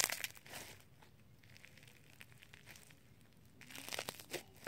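Slime with crunchy pieces mixed in being stretched and squished by hand, making faint crackling and crinkling in two spells: at the start and again near the end.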